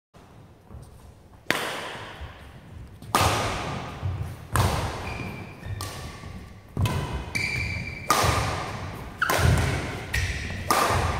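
Badminton rally: rackets strike the shuttlecock about every second and a half, about eight sharp smacks in all, each ringing on in the echo of a large hall. Short squeaks of court shoes on the court mat come between some of the hits.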